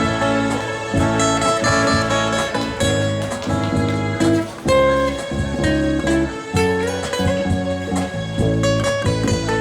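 A band playing the instrumental opening of a Thai pop song, with guitar to the fore over a steady, pulsing bass line.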